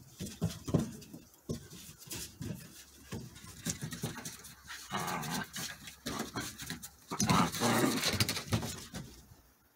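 Two border collie puppies play-fighting, making dog sounds in irregular short bursts, loudest from about seven to eight and a half seconds in.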